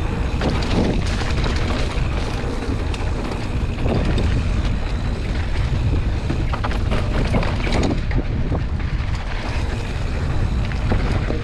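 Wind buffeting the microphone in a steady low rumble, with scattered sharp clicks and knocks.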